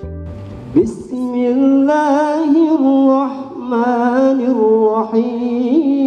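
A man's voice begins a chanted Quranic recitation (murottal) about a second in. It is sung in long, ornamented held notes that waver in pitch, with short breaths between phrases.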